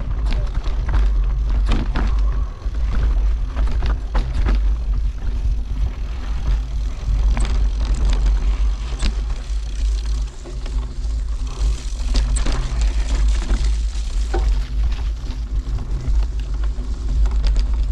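Wind buffeting the camera microphone, with the knocks and rattles of a mountain bike riding over a rough dirt track.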